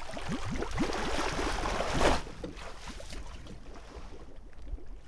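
Wooden rowboat hull scraping and grinding over stones and seaweed as it is shoved off the shore. The scraping ends in a loud burst about two seconds in, and a quieter background follows.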